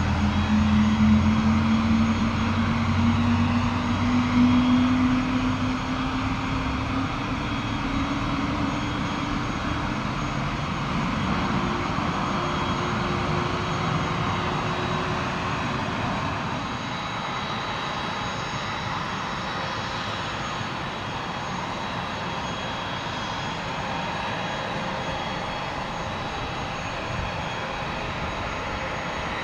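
Boeing 767-300ER's jet engines running as the airliner taxis away: a whine rising in pitch over the first several seconds as thrust comes up, then a steady rushing hiss that slowly grows fainter.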